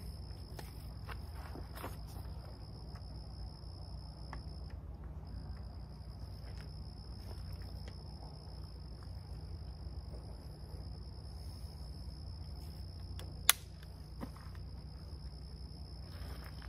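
Insects droning in one steady high-pitched tone that breaks off briefly about five seconds in. A low background hum runs underneath, with faint handling clicks and one sharp click about thirteen seconds in as a crossbow is set into a shooting rest.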